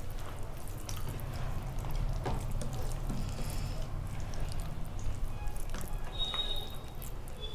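Soft, wet eating sounds: fingers squishing and mixing soft boiled rice, with scattered small clicks, over a steady low hum.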